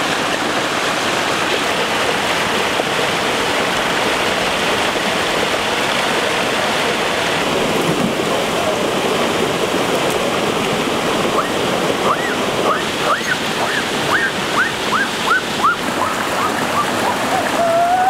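A shallow creek running over rocks, a steady rush of water. In the second half a run of short, high whistled notes, about two a second, sounds over it.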